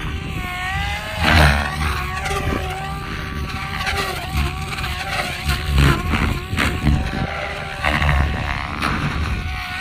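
SAB Goblin 700 electric RC helicopter flying 3D aerobatics: the whine of its motor and rotor rises and falls in pitch as it manoeuvres, with several heavy low surges along the way.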